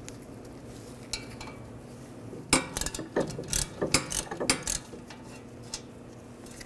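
Hand ratchet with an 8mm hex socket clicking as the brake caliper bracket bolts are backed out, with metallic clinks, in a burst from about two and a half seconds in to about five seconds in.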